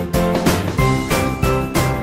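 Background music with a steady beat, about three beats a second, and a melody of sustained notes.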